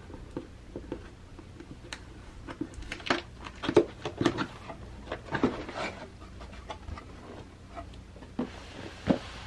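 Cardboard box being opened by hand: scattered rustles, scrapes and taps of fingers on the cardboard and its flap, busiest in the middle, with a sharper knock near the end.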